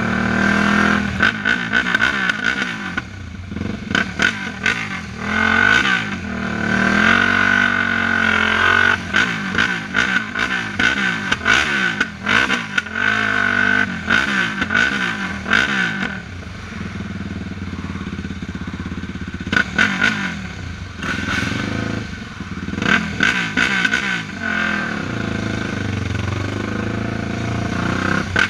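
Sport quad's single-cylinder four-stroke engine revving up and down again and again under throttle, with short sharp clatter through it; it runs quieter from about halfway through.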